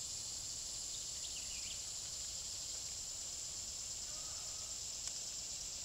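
Steady, high-pitched drone of an insect chorus in summer woods, with a few quick bird chirps about a second in and a faint click near the end.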